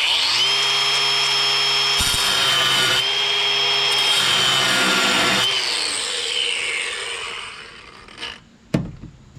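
Handheld electric power tool spinning up and running against a metal fastener for about five seconds, then switched off with its whine falling as it winds down. It is tearing up the metal of a stripped Torx fastener.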